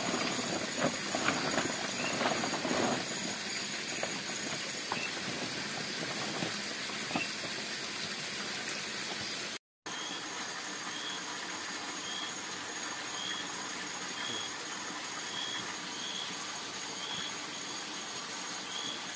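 Tropical forest at night: a steady hiss of insects with a thin high whine, and a short high chirp repeating about every 0.8 seconds in the second half. Rustling and clattering in the first few seconds.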